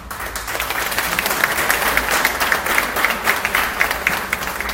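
An audience applauding: many hands clapping together, starting suddenly and dying away near the end.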